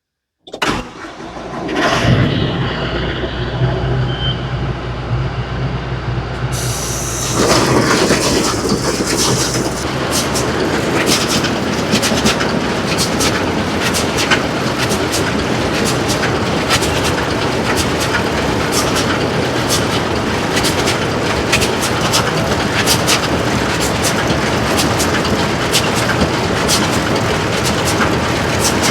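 A John Deere 6120E tractor engine comes up and runs steadily. About seven seconds in, the New Holland BR7060 round baler is set running from the tractor, and its chains and rollers rattle with frequent irregular clicks while the chains are being oiled in motion.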